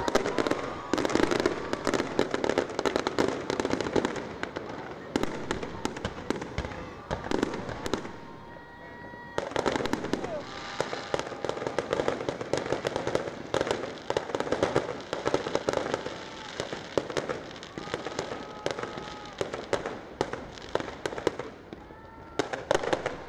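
Fireworks going off in rapid, dense popping and crackling bangs, easing off briefly about seven to nine seconds in before resuming.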